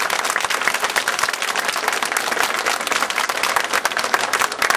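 A large crowd clapping continuously, many hands at once.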